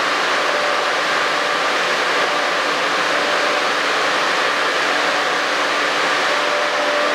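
Steady machine hiss and faint hum of an underground metro platform, even throughout with no rise or fall.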